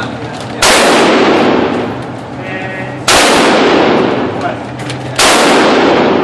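Three single gunshots, about two and a half seconds apart, each sudden and very loud with a long echoing tail.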